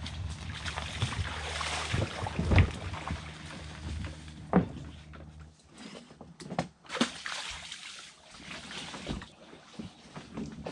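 Plastic Hobie fishing kayak being dragged over sand and launched into shallow water: the hull scrapes and the water sloshes, with a few sharp knocks on the hull. A low steady hum runs under the first half.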